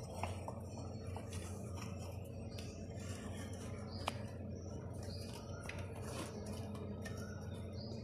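A few faint metallic clicks as a new brake pad is worked by hand into a TVS Apache RTR 180's rear disc brake caliper, the sharpest tick about four seconds in. Small birds chirp repeatedly in the background over a low steady hum.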